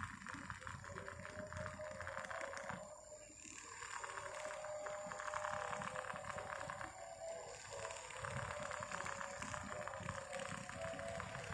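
Several small battery-powered toy desk fans running together: a steady whir of tiny electric motors with a fast buzz of plastic blades, dipping briefly twice.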